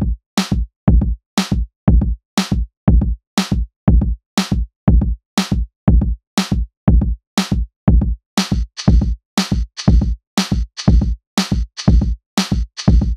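Background music made of an electronic drum-machine beat: a deep kick about twice a second with a sharp snare-like hit once a second. A hissing hi-hat layer joins about eight and a half seconds in.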